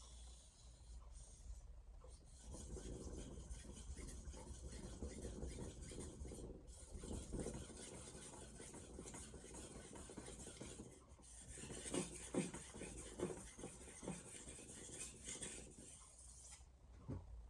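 VG10 stainless santoku blade being stroked back and forth on a 1000-grit Shapton Glass whetstone, a soft steady scraping of steel on stone, working the second side of the edge to raise a burr. The strokes start about two seconds in, pause briefly partway through and stop just before the end.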